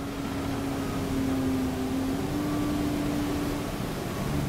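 Alexander Dennis Enviro 400 double-decker bus heard from the passenger saloon while under way: a steady drone of engine, drivetrain and road noise with a whine that wavers in pitch. A deeper engine note comes in near the end.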